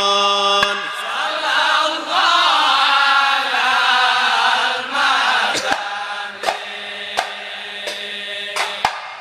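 A large group of men chanting Ishari sholawat together: a long held note that breaks off about a second in, then a wavering melodic chant that grows fainter after the middle, with a few scattered sharp strikes.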